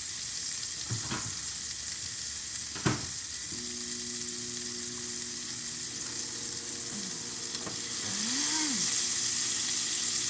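Hamburger patties sizzling in a frying pan, a steady hiss that grows louder near the end, with a sharp click about three seconds in.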